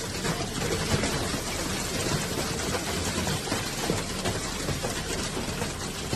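Heavy storm precipitation pelting a surface: a dense, steady patter of countless small impacts.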